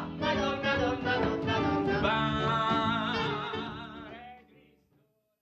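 A song from a stage musical: a voice sings over instrumental accompaniment, holds a long final note with vibrato, and the music fades out to silence near the end.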